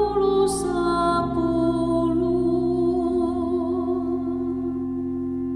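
Closing bars of a slow ballad: a woman's voice holds the final notes with vibrato over acoustic guitar and piano, fading out about four seconds in while the last chord rings on steadily.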